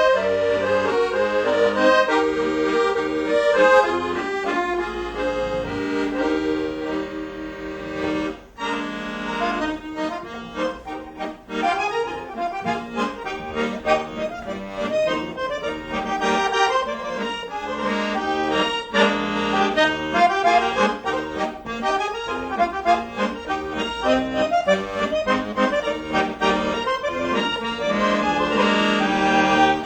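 Accordion playing a tune of held chords and a moving melody, with a brief break about eight seconds in.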